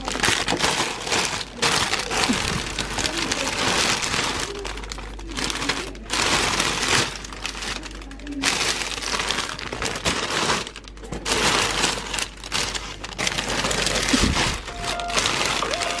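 Plastic bags and packaging crinkling and rustling in irregular spells, with short pauses between them.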